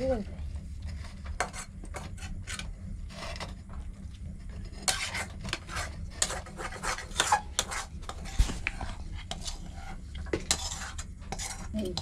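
Metal spatula scraping and clinking against a metal pan as chicken filling is stirred, in quick irregular strokes that grow busier about halfway through, over a low steady hum.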